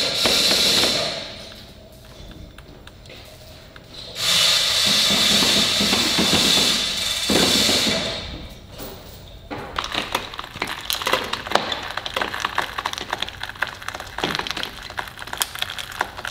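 Keel-lowering gear and hand tools working at a sailboat's keel-to-hull joint: two long bursts of harsh mechanical noise, then about a second in the second half a run of irregular sharp clicks and cracks.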